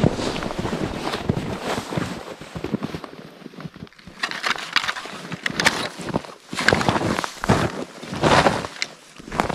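Boots crunching and scuffing through snow in irregular steps.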